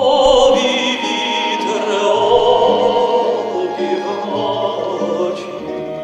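A man singing a slow, lyrical song with vibrato in a classical style, over instrumental accompaniment.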